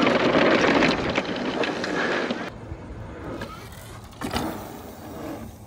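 Riding noise from a Nireeka Mega electric bike rolling over dirt: a steady rush that cuts off abruptly about two and a half seconds in. After that, quieter background with a few light knocks.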